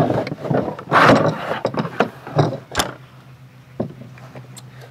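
Plastic knocks and scraping as the chainsaw is shifted in its hard plastic carrying case and the plastic bar scabbard is slid off the bar. There are several knocks and a loud scrape about a second in, and it goes quieter after about three seconds.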